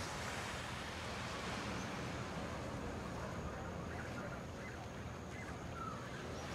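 Steady outdoor wind noise rumbling on the microphone, with a few short, faint bird-like calls about four to six seconds in.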